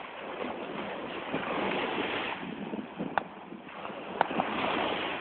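Sea water rushing and wind buffeting the microphone, swelling and easing like waves. There are two sharp clicks, about three and four seconds in.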